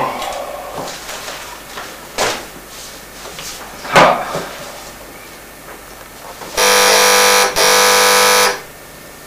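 Paper rustling as a case file and photos are leafed through, loudest about four seconds in, then a desk telephone's electronic ringer sounds twice, two loud buzzing rings of about a second each, near the end.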